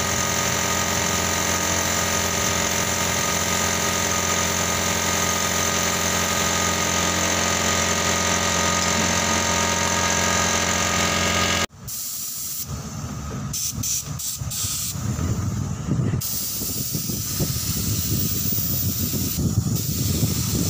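Paint spray gun hissing as it sprays, over the steady running of a motor-driven air compressor. About twelve seconds in the sound cuts abruptly to a rougher, lower rumble with a fainter hiss.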